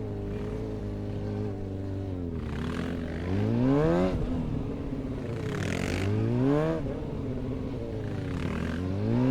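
Suzuki GSX-R 750's inline-four engine idling steadily between three short throttle openings, each a rising rev sweep, as the bike accelerates through a tight gymkhana course.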